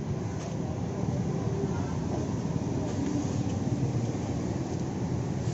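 Steady low rumble of outdoor background noise, with a faint click about half a second in and a sharper click at the very end.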